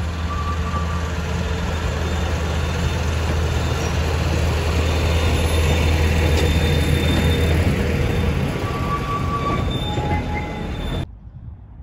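Narrow-gauge diesel locomotive running past with a steady low engine hum, its carriages rumbling over the rails and loudest as they pass about halfway through. The sound cuts off abruptly near the end.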